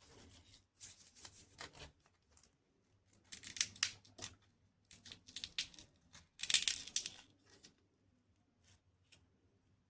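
A chocolate wrapper being torn open and crinkled, in four bursts of crackly rustling.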